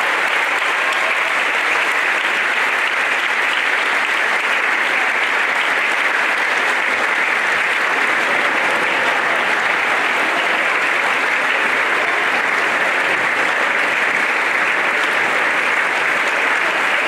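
Audience and performers applauding steadily, a long unbroken round of clapping.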